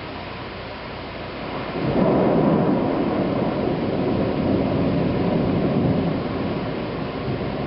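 Thunder rumbling over steady rain noise: a loud low rumble comes in sharply about two seconds in, holds for several seconds and slowly eases off.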